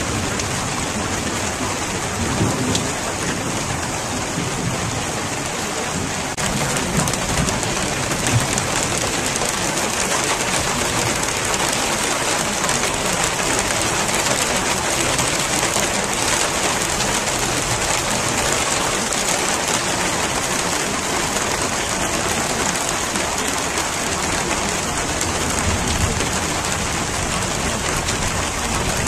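Steady rain falling, a dense even hiss, with low rumbles coming up now and then.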